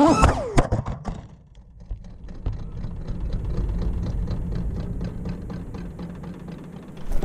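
Music fades out in the first second. Then a steady low mechanical hum with fast, even ticking, like an engine idling.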